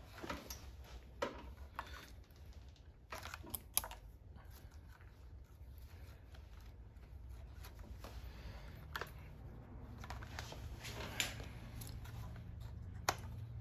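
Hands handling stitching thread and the leather welt while tying off the last inseam stitch: faint, scattered rustles and ticks, with a few sharper clicks.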